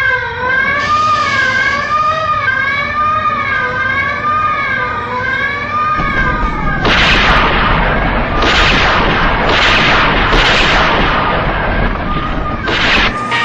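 A wailing alarm tone sweeps up and down about once a second for the first six seconds. Then a run of loud explosions follows, about five heavy blasts with rumbling, the last near the end.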